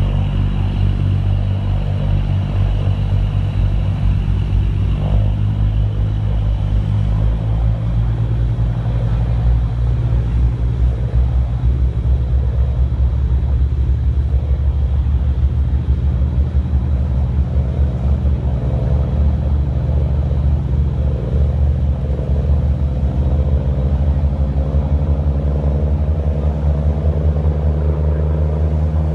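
A ferry's engines running with a steady, loud low drone while the boat is under way. In the second half the pitch rises slightly as the engines speed up.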